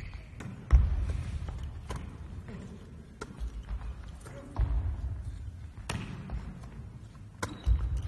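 A volleyball being hit and bouncing on a wooden sports-hall floor, with setter's footwork on the court. About half a dozen sharp knocks a second or so apart, echoing in the hall, the loudest about a second in.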